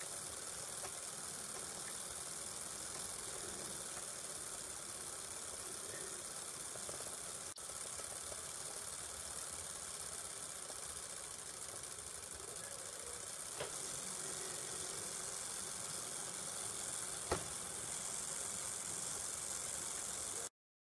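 Small open-frame DC motor of a model train bogie running steadily on the bench, turning the wheels through its worm gearing: a continuous, even whirr with brush and gear noise. A single sharp click sounds late on.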